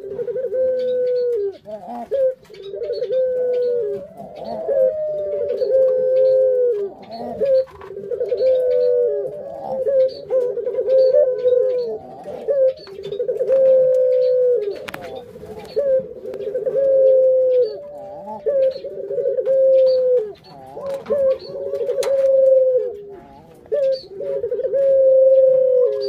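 Domestic ringneck doves (Barbary doves) cooing, one low coo after another with hardly a pause, the calls at times overlapping.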